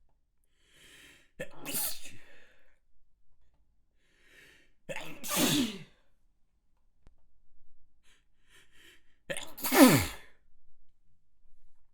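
A person sneezing three times, each sneeze preceded by short gasping in-breaths. The sneezes fall in pitch, and the last, near the end, is the loudest.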